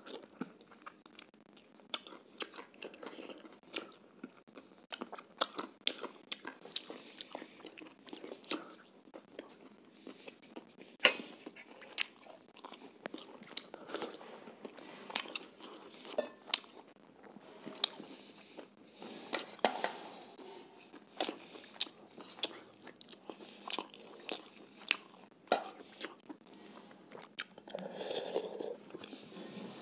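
Close-up chewing and lip-smacking of a man eating chicken curry and roti by hand, with many sharp wet mouth clicks. Near the end he drinks from a steel bowl.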